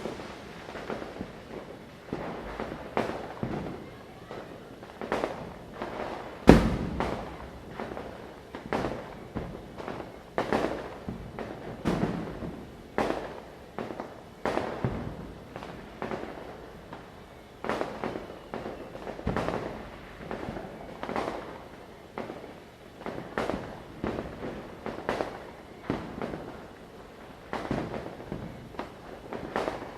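Diwali firecrackers going off in a continuous string of sharp bangs, one or two a second, each trailing off. A single heavier blast comes about six and a half seconds in.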